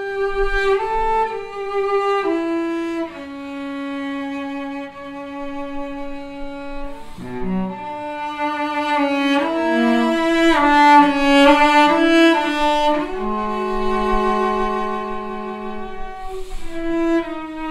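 Bowed string instrument playing a slow melody of long held notes, sliding smoothly from one note to the next.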